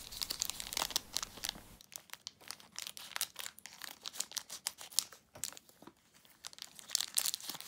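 Crinkly purple plastic blind-bag wrapper being handled, cut with scissors and pulled open: a fast run of sharp crackles and rustles, with a louder flurry near the end.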